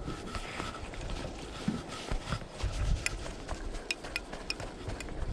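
A string of sharp clicks and light knocks, thickest from about halfway through, from fishing gear being handled and set down on a small boat's deck.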